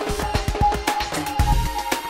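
Background music: an electronic track with a steady beat, deep bass and a synth melody.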